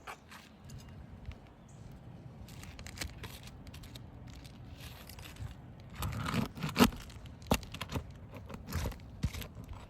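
Asphalt roof shingle being pried up and its sealant strip broken loose: scraping and crackling tearing, with a run of sharp cracks from about six to nine seconds in.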